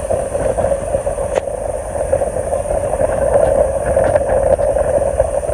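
Boat engine running with a steady drone.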